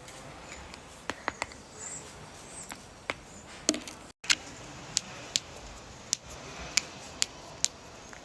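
Joints cracking: about a dozen sharp pops at irregular intervals, the loudest a little before and after the middle.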